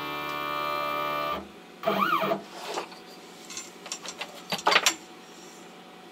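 CNC router's Z-axis stepper motor whining steadily as it drives the bit down onto the touch plate to set the Z height, stopping about a second and a half in. About two seconds in there is a short whine that rises and then falls in pitch as the axis moves again. A few light clicks and knocks follow near the end as the touch plate is handled.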